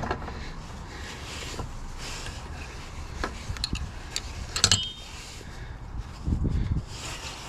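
Thread-repair die being turned by hand on a car axle's spindle-nut threads: a low scraping rumble with a few sharp metallic clicks around the middle, one with a short ring, and a dull thump near the end.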